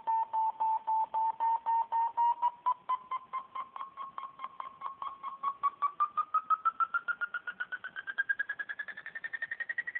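FrSky Taranis transmitter's variometer tone: a fast train of short electronic beeps whose pitch rises steadily while the beeps come faster and faster. This is how a vario signals an increasing climb rate.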